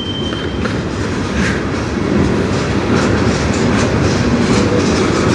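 Freight train cars rolling past, steel wheels running on the rails with a steady rumble and faint clicks, growing slowly louder.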